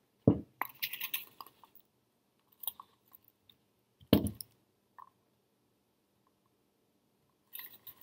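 Jewelry pliers and a spool of silver wire handled on a canvas-covered worktable: two dull thumps as tools are set down, one just after the start and another about four seconds in, with scattered light metallic clicks and clinks of the pliers and wire between them and near the end.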